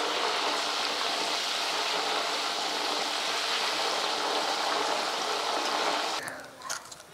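Raw banana slices deep-frying in hot oil in a wok: a steady sizzle and bubbling hiss of the oil. It drops away a little after six seconds, leaving a few light clicks.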